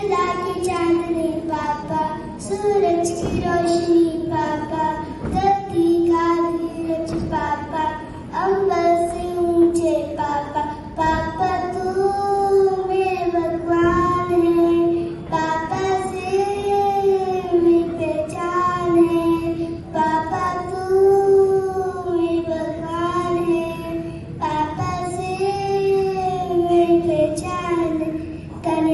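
A child singing a melody solo, in phrases of long held notes.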